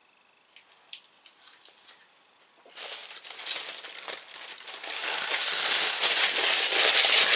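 A few faint clicks, then from about three seconds in a plastic wrapping bag crinkling and rustling loudly as it is crumpled and rummaged through by hand.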